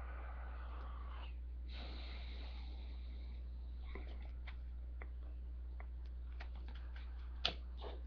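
Steady low hum under faint rustling and light clicks of trading cards being handled and shuffled, with one sharper click about seven and a half seconds in.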